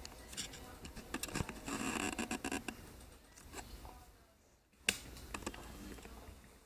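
Small metal hardware being handled and fitted: a run of light clicks, taps and rattles as standoffs are screwed into a steel case panel, with one sharp click about five seconds in.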